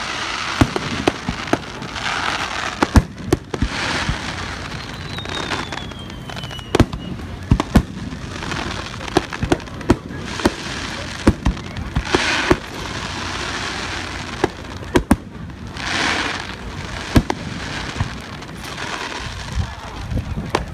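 Aerial firework shells bursting in quick, irregular succession: sharp bangs mixed with the crackle of sparkling stars, with one faint falling whistle a third of the way through.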